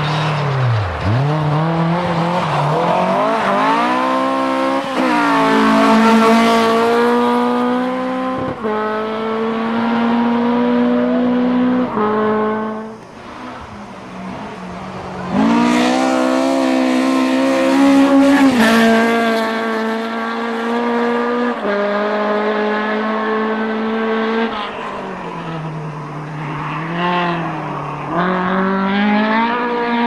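Fully tuned Toyota TE27 2T-G twin-cam four-cylinder on Solex carburettors, revving hard. The pitch climbs, holds level for several seconds at a time and steps down, with a brief lift-off near the middle before it pulls up again.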